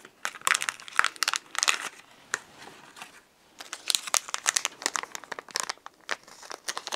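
Crinkling of a silvery anti-static bag being handled and opened by hand: quick, sharp crackles in two bouts, with a lull of about a second and a half between them.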